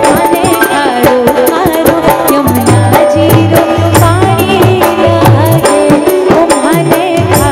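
Live Hindi devotional bhajan: a woman singing into a microphone over a steady hand-drum rhythm, with keyboard backing.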